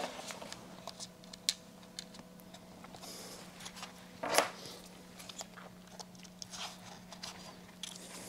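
Light clicks and small taps of hands handling small parts, with a louder rustle or scrape about four seconds in, over a faint steady hum.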